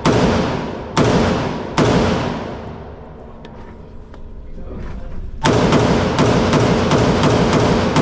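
Gunshots ringing out in an indoor shooting range, each crack trailing off in a long echo: three shots about a second apart, a pause of a few seconds, then a quicker string of about six shots near the end.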